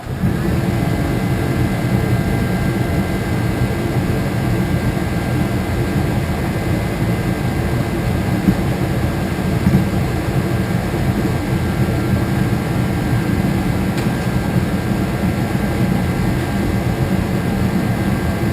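A loud, steady mechanical roar, like a blower or engine running at constant speed, that cuts in and cuts off abruptly.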